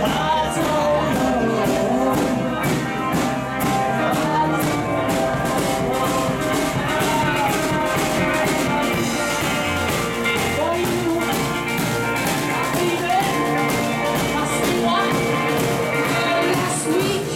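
Live rock band playing: electric guitars and a drum kit keeping a steady beat, with a lead vocal.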